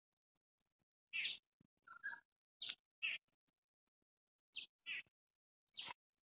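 Faint, brief bird chirps: a handful of short calls scattered irregularly through several quiet seconds.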